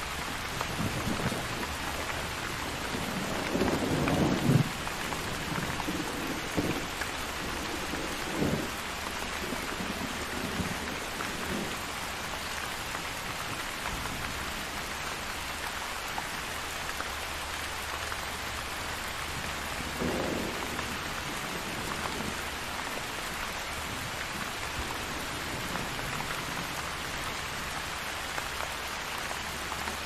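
Steady rain falling, with low thunder rumbles; the loudest rumble comes about four seconds in, and weaker ones follow near eight and twenty seconds.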